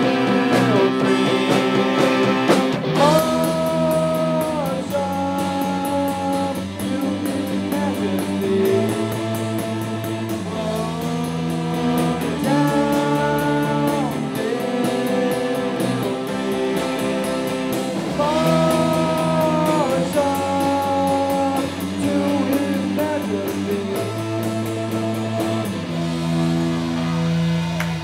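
Live rock band playing: electric guitar, bass guitar and keyboard, with a male voice singing into the microphone.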